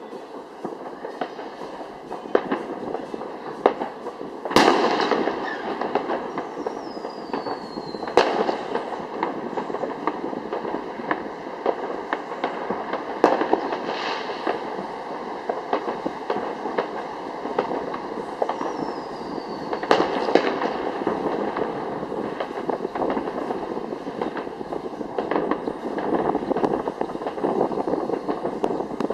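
Fireworks display: shells bursting with sharp bangs, the loudest about four and a half, eight and twenty seconds in, over continuous crackling and popping. Two short falling whistles, about seven and nineteen seconds in.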